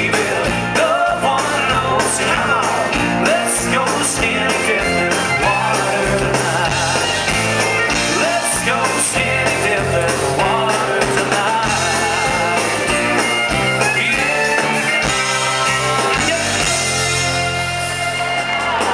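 Live band playing an amplified country-rock song on electric guitars, bass guitar and drum kit, with a man singing over them.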